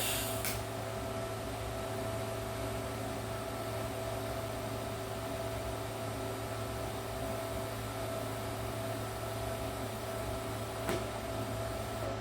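Electric welding arc on steel, a steady hiss over the welder's hum that starts at the outset and cuts off near the end, with a couple of short clicks.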